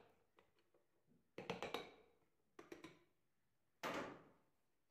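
Short bursts of quick clicks and knocks as bench grinder parts are handled during disassembly, ending with one sharper knock about four seconds in that rings briefly.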